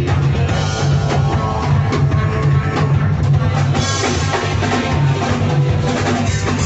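Rock music with a drum kit and electric guitar playing a steady beat.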